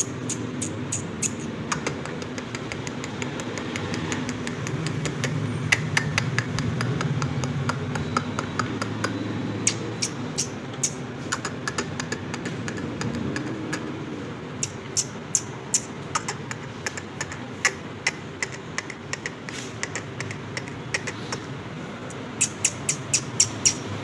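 Runs of sharp clicks and taps from an Indian ring-necked parakeet's beak and claws as it pecks at a hand and steps about on a tiled floor, in quick clusters with pauses between. A steady low hum runs underneath.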